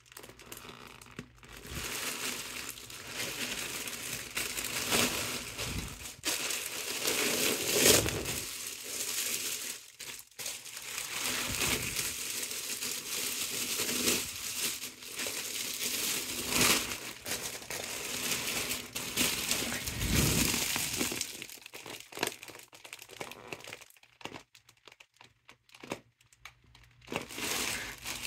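Mylar foil balloon crinkling and crumpling as hands squeeze and flatten it to push the air out. The crinkling is nearly continuous for most of the time, then thins to a few scattered crinkles near the end.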